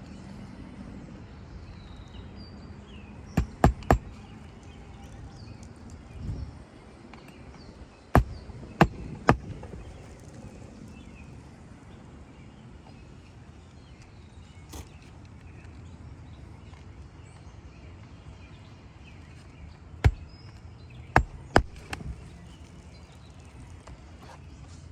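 Nails being hammered by hand into asphalt roof shingles: three bursts of sharp strikes, about three blows each, a few seconds in, around eight to nine seconds in and near twenty seconds in.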